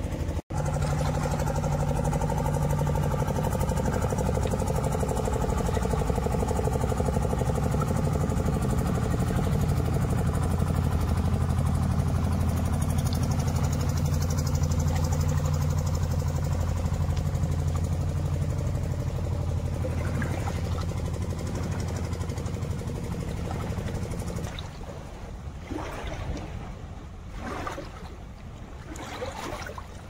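Engine of a wooden river boat running steadily, a low drone that stops about 24 seconds in. After it come wind and lapping water.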